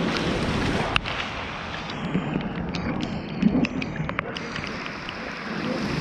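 Rainy-weather noise on an action camera's microphone: a steady rushing with wind rumble and scattered sharp ticks, with one louder click about a second in.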